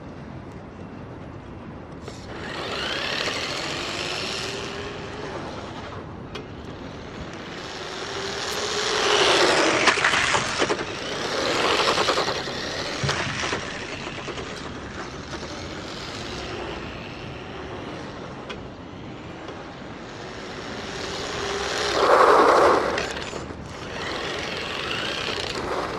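Vintage Tamiya Hornet radio-controlled buggy running in several bursts, its electric motor and gears whining up and down in pitch with the throttle. The sound swells as it comes near and fades as it moves off, and the loudest pass comes near the end.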